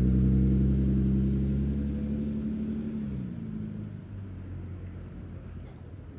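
A vehicle's low, steady hum that sinks slightly in pitch and fades away about three to four seconds in, as when a vehicle passes by.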